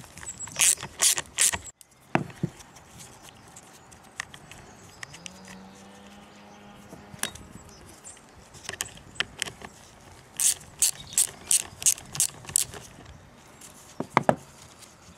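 Hand socket ratchet clicking in short runs as the two nuts holding a chainsaw's carburettor cover are turned out. There are a few quick clicks near the start, a longer run of about eight clicks after the middle, and two or three more near the end.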